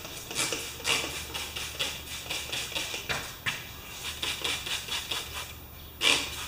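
Hand trigger spray bottle squirting soapy water onto a wheelbarrow's pneumatic tire in quick repeated squirts, a few a second, to find where air is leaking from it.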